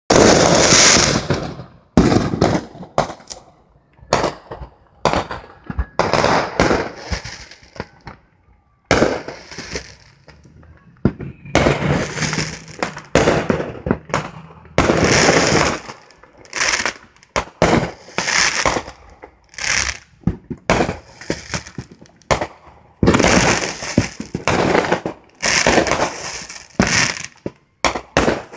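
Fireworks going off in a steady barrage: sharp bangs mixed with crackling bursts, some of which last a second or more, coming every second or two.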